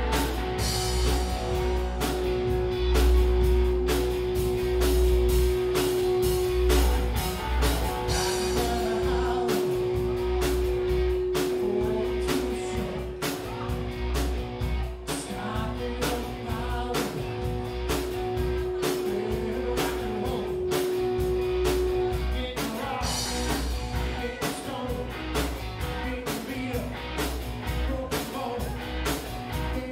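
Live rock band playing, with drums keeping a steady beat and one long note held for about twenty seconds before it drops out.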